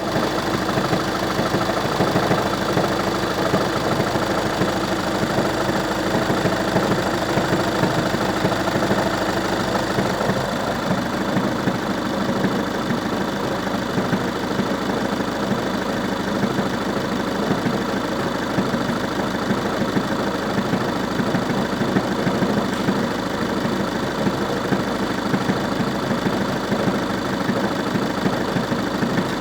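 Volkswagen Passat B6's 1.9 TDI four-cylinder diesel engine idling steadily with an abnormal engine noise. A steady low hum in the sound stops about a third of the way in, while the engine runs on unchanged.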